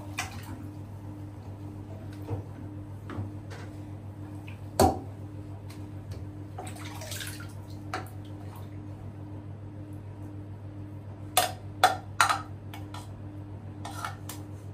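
Water splashing now and then, with a sharp splash about five seconds in and a quick run of three splashes near the end, over a steady low hum.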